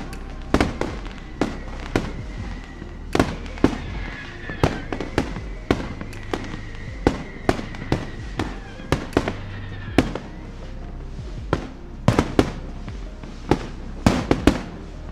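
Fireworks display, with a rapid, irregular string of sharp bangs and crackles from shells bursting. A high steady whistle runs through the middle few seconds.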